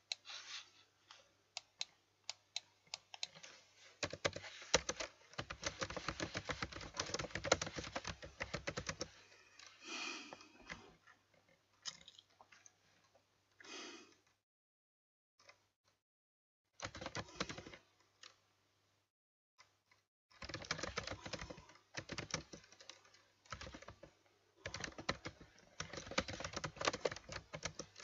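Typing on a computer keyboard: bursts of rapid key clicks, broken by pauses of a second or two.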